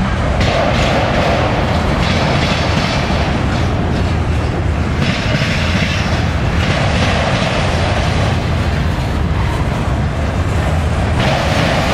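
Norfolk Southern mixed freight's autorack and flat cars rolling past close by: a steady rumble and rattle of steel wheels on the rails, swelling and easing slightly every few seconds as the cars go by.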